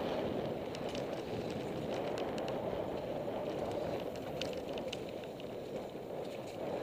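Mountain bike riding fast down a dirt singletrack: a steady rush of tyres rolling over dirt and air rushing past, with scattered small clicks and rattles from the bike and loose stones.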